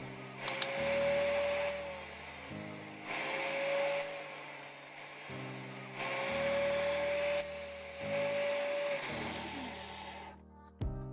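Angle grinder with a sanding disc, mounted in a bench jig, grinding the tip of a drill bit in three bouts of a couple of seconds each. The sound stops about ten seconds in. Background music plays underneath.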